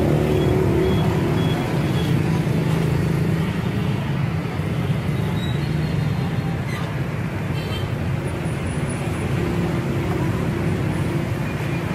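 Steady low rumble of outdoor street ambience, traffic-like, with faint voices in the background.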